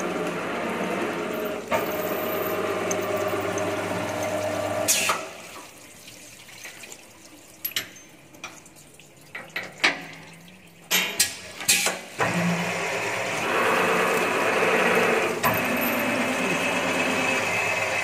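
Multi-spindle tapping machine running, its spindle motor humming and coolant spraying. It stops about five seconds in; a few light clicks and then several sharp clacks follow as the part in the fixture is changed, and the machine starts its next cycle about twelve seconds in.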